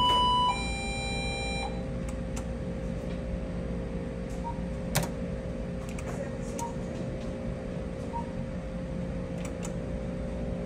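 Skill game machine giving a two-note electronic beep, a higher tone then a lower one, over a steady hum. A few faint short blips and a single click follow.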